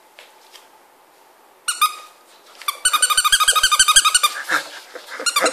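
Plush elephant squeaky toy squeaking: a single squeak a couple of seconds in, then a rapid run of short, high squeaks, several a second, that breaks off briefly and starts again near the end.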